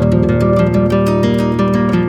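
Music with a strummed acoustic guitar, steady and rhythmic.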